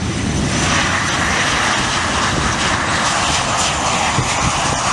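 Jet engines of a Ryanair Boeing 737 on final approach passing low and close: a loud, steady rushing roar with a thin high whine, growing louder in the first second and then holding.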